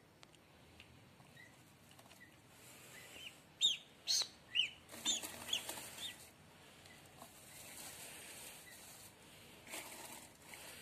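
Newly hatched duckling peeping: a quick run of about half a dozen high, sharp peeps starting about three and a half seconds in. Dry straw rustles faintly under a hand.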